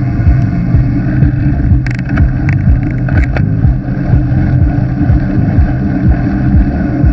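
Wind buffeting a bike-mounted action camera's microphone during a fast road-bike descent: a loud, steady low rumble, with a few short rattles about two to three seconds in.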